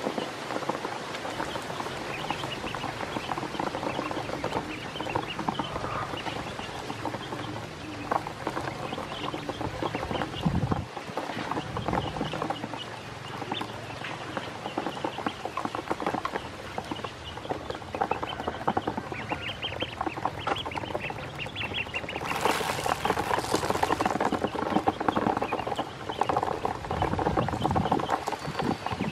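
A flock of ducklings peeping and dabbling for feed in a shallow plastic basin of water, with a steady patter of chirps, bill taps and small splashes, and a louder, noisier flurry about 22 seconds in.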